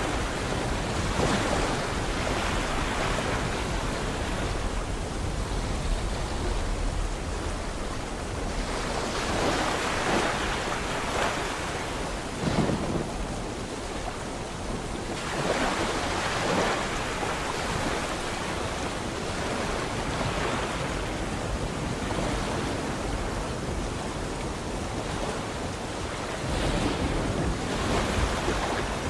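Sea waves breaking and washing ashore: a continuous rush of surf that swells every few seconds.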